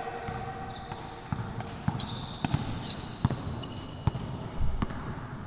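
Basketball bouncing on an indoor court during play, a handful of irregular thuds echoing in a large sports hall, with short high squeaks of sneakers on the floor.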